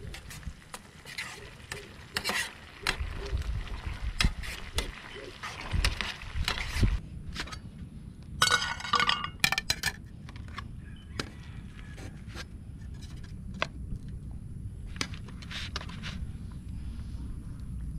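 A metal spoon stirring and scraping food in a small metal pan on a portable gas stove, then a run of sharp metallic clinks and scattered clicks of a metal cooking pot and spoon as cooked rice is scooped out.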